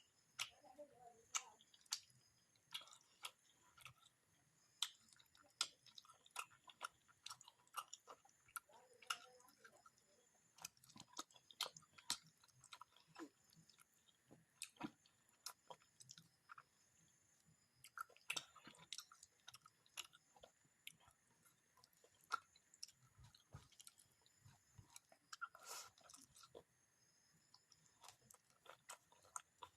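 Close-up eating sounds of a person chewing fish curry and rice: many short, wet mouth clicks at irregular intervals.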